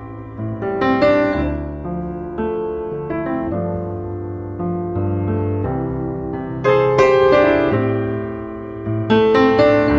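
Background piano music: slow, gently played notes and chords that ring and fade, with fuller chords struck about a second in, around seven seconds in and near the end.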